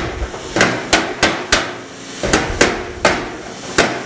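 Body hammer striking a thin-gauge steel patch panel from behind against a hand-held dolly: about a dozen sharp metallic taps at an uneven two to three a second, each with a short ring. The taps are raising a low spot in the patch so that it sits flush with the fender.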